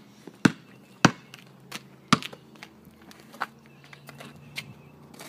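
Basketball dribbled on a concrete driveway: sharp single bounces, the loudest about two seconds in, then fewer and fainter knocks as the dribbling slows.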